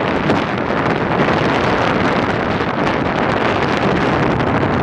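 Heavy storm surf breaking steadily on the shore, mixed with wind buffeting the microphone; a loud, continuous rushing noise.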